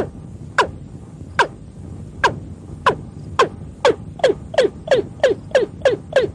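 Watercock calling: a series of short notes, each dropping sharply in pitch. The notes come about one a second at first and speed up to about three a second.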